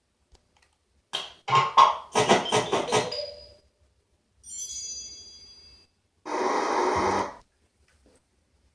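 A string of cartoon sound effects. First comes a quick series of about six sharp clattering hits. Then a high ringing chime fades out, and last a noisy burst lasts about a second and cuts off.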